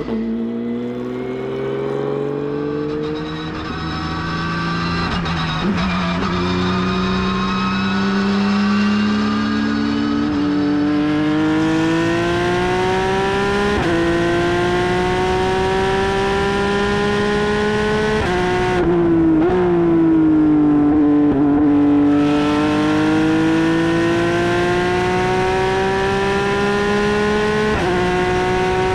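Porsche 992 GT3 Cup race car's naturally aspirated flat-six engine pulling through the gears on a warm-up lap: the note climbs steadily in each gear and steps down at each upshift, several times, with a brief lift about two-thirds through. The car is being warmed up and its new brakes bedded in, so it is not at full race pace.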